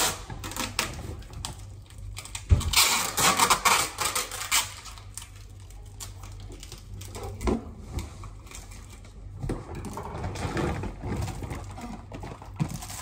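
Goods and their plastic packaging being handled and packed: bursts of rustling, crinkling and small clicks and knocks, busiest in the first few seconds and sparser after.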